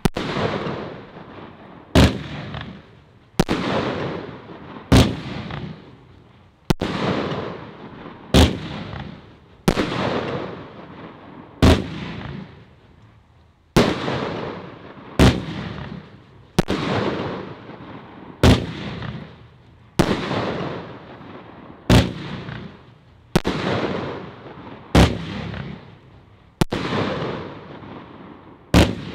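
Celtic Fireworks Stealth Rising multi-shot firework cake firing a steady sequence of shots, a sharp loud thump about every second and a half, each followed by a hiss that fades away.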